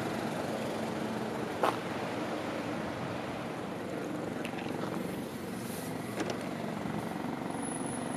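Steady low vehicle engine rumble, with one sharp click about one and a half seconds in and a few fainter ticks later.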